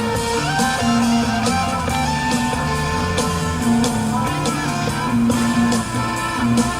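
Music with guitar, held notes over a steady beat, playing between lines of a spoken reading.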